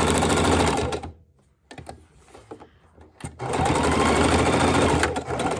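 Electric sewing machine running a straight stitch through hook-and-loop tape on fabric. It stops about a second in, with a few faint clicks during the pause, then starts again and sews for about two seconds before stopping near the end.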